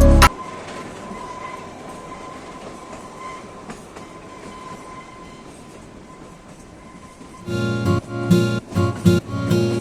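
Kalka–Shimla narrow-gauge toy train running, a steady even rail noise with a faint steady whine. Background music cuts off just after the start, and strummed guitar music comes in near the end.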